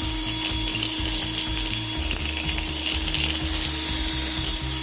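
Makita cordless drill running at a steady speed, spinning a glass jar so the loose pieces inside rattle and tumble against the glass.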